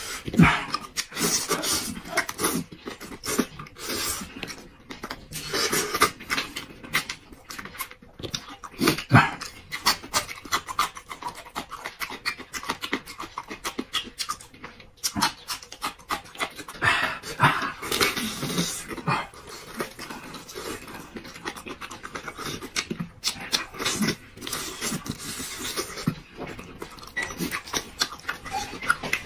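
Close mouth sounds of a man eating spicy braised meat off the bone: wet chewing, sucking and slurping with lip smacks, in irregular bursts.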